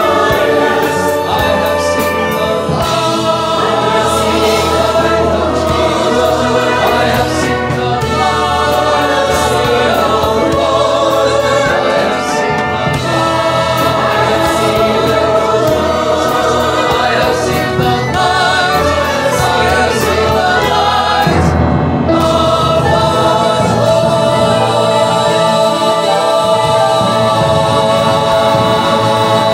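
Church choir singing a worship song with an orchestral accompaniment of strings, brass, woodwinds and timpani, mixed together from separate home recordings as a virtual choir. The voices briefly thin out about two-thirds of the way through, then the full choir comes back in.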